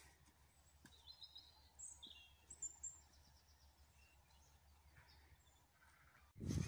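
Faint bird chirps, a few short calls clustered in the first half, over a quiet outdoor background. Just before the end a much louder low rumble cuts in abruptly.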